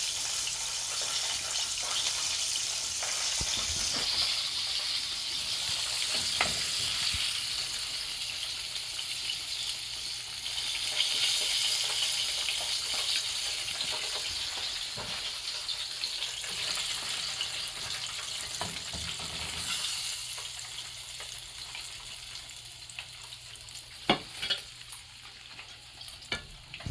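Red snapper deep-frying in hot oil, a steady sizzle that slowly fades, with a few sharp clicks near the end.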